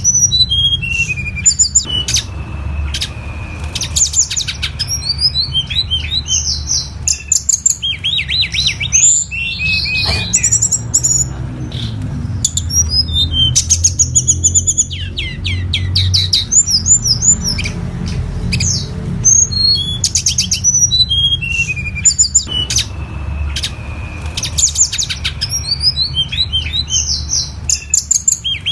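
Tledekan gunung songbird singing over and over: quick high trills and falling runs of notes, broken by short pauses, over a steady low hum.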